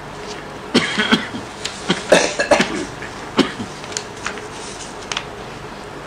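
A person coughing several times in short, sharp bursts, the heaviest coughs in the middle, over a steady background hum.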